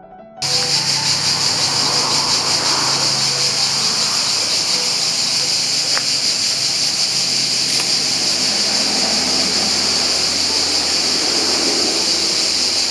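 Loud, steady chorus of cicadas, a dense high-pitched buzz that starts abruptly about half a second in and holds at an even level, with a faint low hum beneath.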